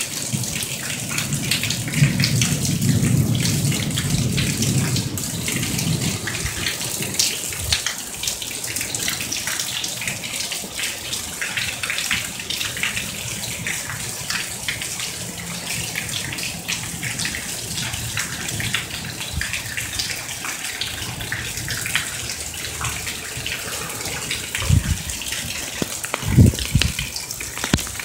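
Heavy monsoon downpour: rain pouring in a sheet off a roof eave and splashing, a steady rushing hiss. A low rumble swells about two seconds in and fades a few seconds later, and two short low thumps come near the end.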